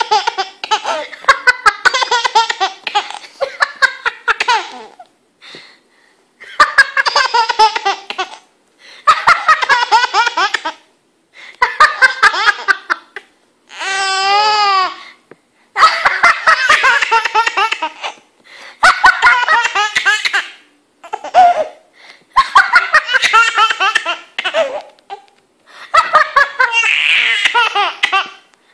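A baby laughing hard in repeated belly-laugh fits, about ten bouts of a couple of seconds each with short breaks for breath between them.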